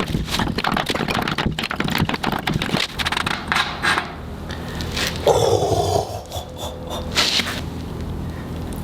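Rapid scraping, clicking and knocking as an old glass-lined well pressure tank, cut open and holding clay sediment, is handled; a short falling ringing sound comes about five seconds in.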